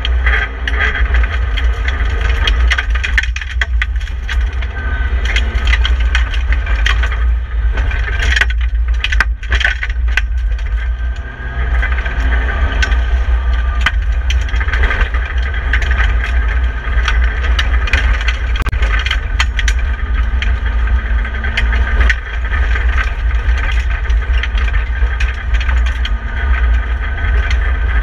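Inside a BMW E30 318i rally car, the four-cylinder engine running hard on a gravel stage, with steady tyre and gravel noise, a heavy low rumble and frequent rattles and knocks from the bare cabin.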